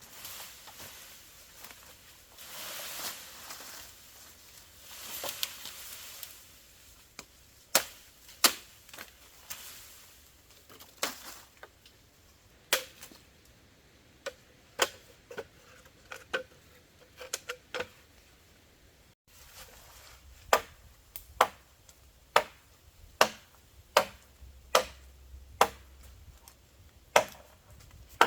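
Rustling for the first few seconds, then sharp chopping strikes of a blade. The strikes are irregular at first and settle into a steady rhythm of about one a second in the second half.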